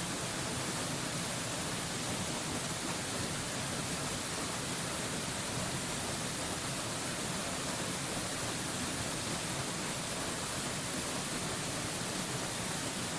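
Waterfall rushing in a steady, even hiss of falling water that does not change.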